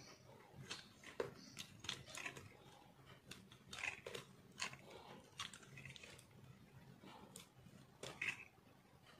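Snap-off utility knife blade shaving a bar of re-molded, pressed soap crumbs: a quick irregular run of short, quiet crunchy scrapes as flakes break away.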